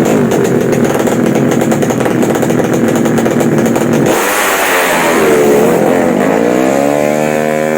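Drag-race motorcycle engines running loud at high revs. About four seconds in, the steady engine note breaks off into a rougher noise, then an engine note climbs steadily in pitch and holds high near the end.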